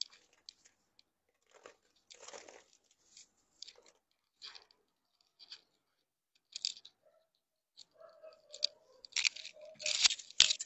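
Irregular rustling and crinkling of clothes being handled and pulled from a shelf. It grows busier and louder near the end, with one sharp click just before the end.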